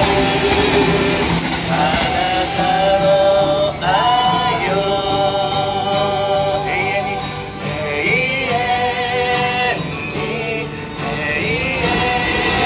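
Live Christian praise song: a woman singing, with held notes in vibrato, over acoustic guitar, ukulele, electronic keyboard and flute.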